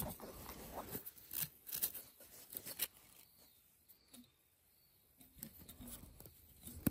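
Rusty steel feeler gauge blades being fanned out and sorted by hand, giving faint scattered metallic clicks and scrapes. There is a quiet stretch in the middle and a sharp click at the end.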